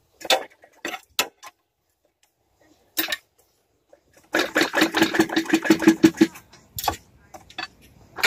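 A few separate metal clicks and knocks from tools on the engine. From about four seconds in comes a two-second run of rapid clicking from a ratchet wrench being worked on a bolt. The sound cuts in and out abruptly, as from a faulty microphone.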